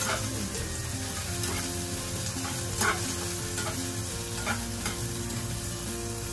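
Onions and garlic sizzling in oil in a small pan while a spatula stirs them, knocking and scraping against the pan several times, loudest about three seconds in.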